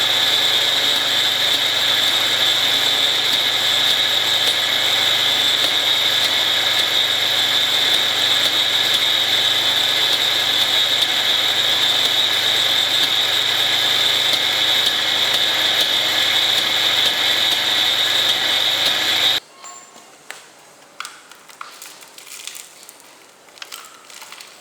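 Two angle grinders driving a homemade wood chipper run at full speed with a steady high-pitched whine. About 19 seconds in it stops abruptly, leaving faint scattered crackles and clicks.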